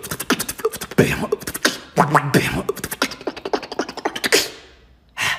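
A man beatboxing with his mouth: fast drum-like kicks, snares and hi-hat clicks in a quick rhythm, with a low bass hum under some phrases. It trails off about four and a half seconds in, and one short burst follows near the end.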